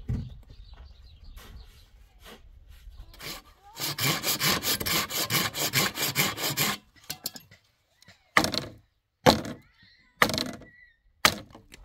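Dry tree root being cut by hand with a metal-bladed tool: a run of quick rasping strokes for about three seconds, then four separate, louder strokes into the wood near the end.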